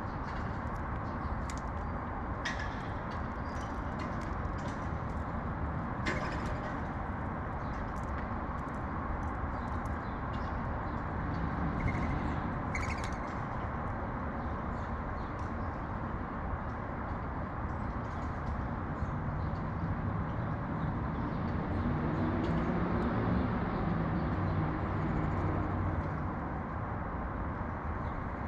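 Urban outdoor background of steady traffic rumble, with brief bird chirps scattered through the first half. A vehicle engine grows louder from about two-thirds in, then fades near the end.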